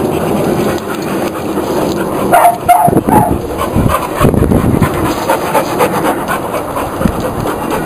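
Pit bulls panting as they play and wrestle, with irregular rough scuffling sounds mixed in.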